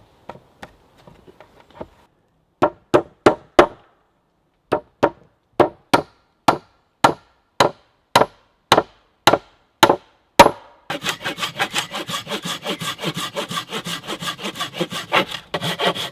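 A run of sharp, evenly spaced hammer blows on wood, about two a second. From about eleven seconds in, a hand saw cuts through timber with rapid, quick strokes.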